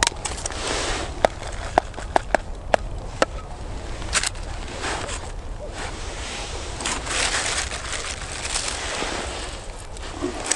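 Plastic bag of groundbait rustling as it is handled by hand, with several sharp clicks of small fishing gear between about one and four seconds in.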